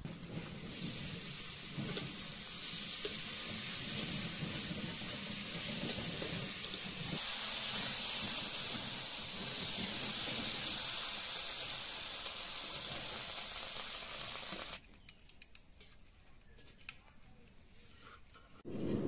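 Radish and brinjal sizzling in oil in an iron wok over a wood fire. About seven seconds in, water poured in from a steel tumbler makes the sizzle louder and hissier for several seconds. Then it stops abruptly, leaving only faint ladle clinks in the simmering curry.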